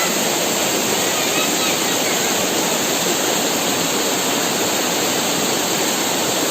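Fast-flowing stream water rushing steadily over rocks at a waterfall: a loud, even rush.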